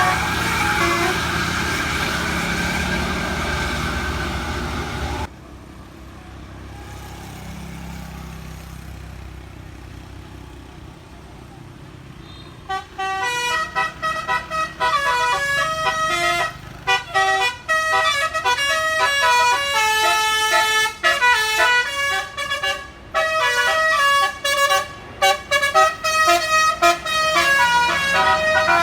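Bus 'telolet basuri' melody air horn playing a fast tune of quick, stepped notes, which starts about halfway through and runs on. Before it, loud bus engine and road noise with a steady high tone cuts off suddenly after about five seconds, followed by a quieter stretch.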